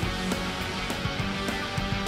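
Background music with strummed guitar over a steady beat.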